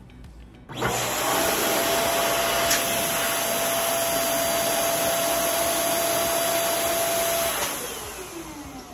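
Electric balloon inflator pump switching on about a second in and running steadily with an air rush and a high motor whine while inflating latex balloons, then switching off and spinning down with a falling whine near the end.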